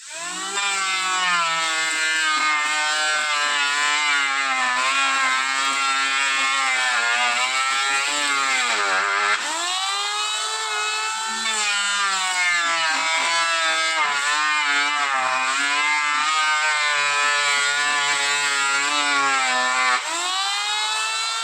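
Electric woodworking power tool motor whining under load, its pitch wavering and sagging as the cut bears on it. The pitch dips deeply about nine seconds in and climbs back, then dips and rises again near the end.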